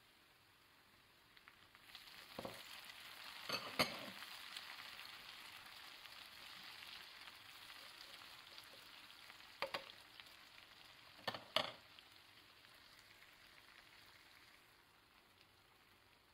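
Bacon and onion frying in a skillet. The sizzling rises sharply about two seconds in as chopped tomatoes are tipped in with a few clatters, then tongs knock against the pan a few times during stirring, and the sizzling dies down toward the end.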